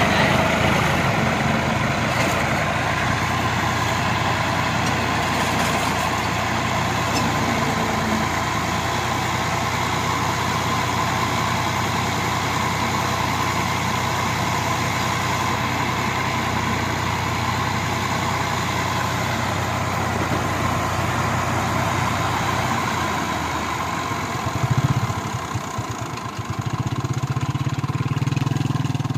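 Farm tractor's diesel engine running steadily at idle. About 25 seconds in there is a brief louder surge, and the engine note changes after it.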